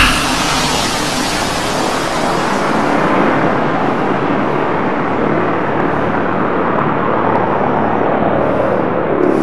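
Loud, steady rushing rumble that starts abruptly and runs on evenly, its hiss dulling a little after a few seconds.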